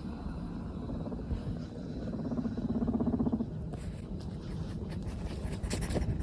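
Guinea pig purring: a low, fast-pulsing purr that swells and is loudest from about two to three and a half seconds in, the sound of a contented guinea pig. A few light clicks and rustles near the end.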